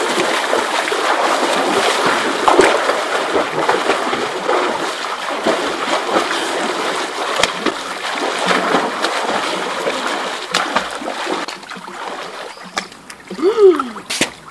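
Heavy splashing of pool water as a swimmer thrashes along on a kickboard. The splashing dies down about three quarters of the way through. Near the end there is a short cry that falls in pitch.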